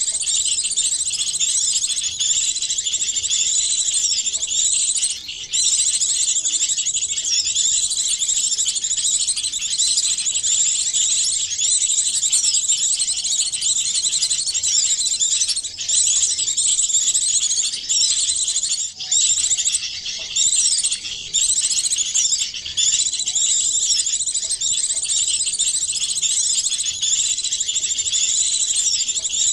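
A dense, continuous chorus of small songbirds' high, rapid chirps and twittering calls layered over one another: a mixed bird-luring recording made to draw small birds such as white-eyes, sunbirds and tailorbirds in.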